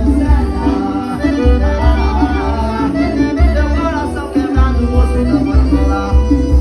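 Forró music: an accordion melody over a steady pulsing bass beat.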